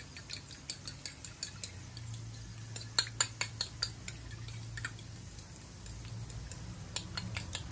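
A fork beating eggs in a ceramic bowl, its tines clinking rapidly against the bowl's sides at about four or five strokes a second, in runs with a couple of short pauses.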